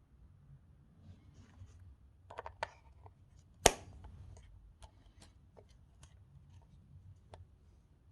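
Scattered small clicks and taps from handling a plastic digital alarm clock, with a short cluster and then one sharp, much louder click about three and a half seconds in.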